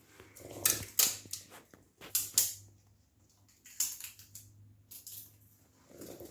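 Irregular clicking and rustling of small objects being handled, with the sharpest clicks about a second in and again just past two seconds.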